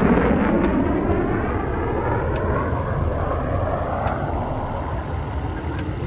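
Military fighter jet flying over: a loud, steady jet roar with a sweeping whoosh running through it, easing off slightly near the end.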